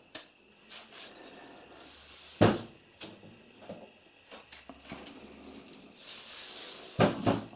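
Rhubarb stalk being peeled by hand with a small knife: the fibrous skin strips pulling away along the stalk, with scattered clicks and knocks, the sharpest about two and a half seconds in, and a soft rasp near the end.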